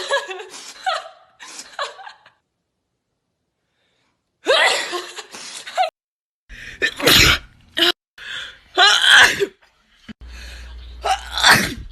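A run of about four separate sneezes, each a loud sudden burst, with a quiet gap of about two seconds near the start. The sneezes are set off by tickling the nose with a Q-tip or swab.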